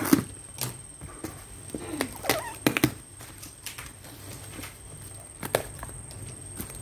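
A taped cardboard box being cut open with a knife and its flaps pulled open: a scrape of the blade along the tape, then a string of sharp knocks and rustles of cardboard, the loudest just after the start and again a little before the middle.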